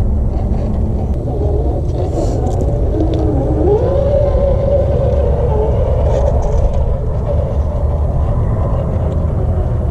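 Axial SCX10 II radio-controlled rock crawler's electric motor and gears whining, the pitch wandering and then rising and holding with the throttle about four seconds in, over a steady low rumble.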